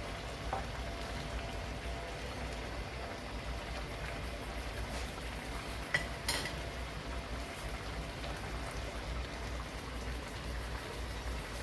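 Fish curry simmering in oil in a kadai, a steady soft sizzle and bubble at the late bhuna stage, when the oil has risen to the surface. A couple of small clicks about six seconds in.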